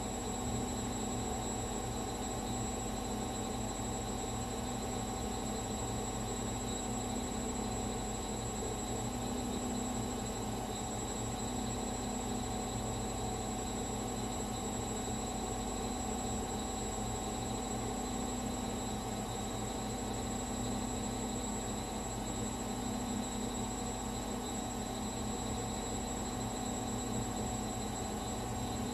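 Gorenje washing machine on its spin cycle, drum and motor running at a steady speed with an even hum.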